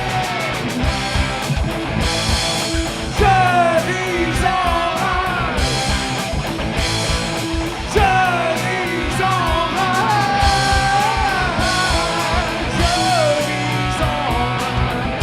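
Rock music: a band with drums, bass and electric guitar playing an instrumental passage, with a lead melody sliding and bending in pitch over it in several phrases.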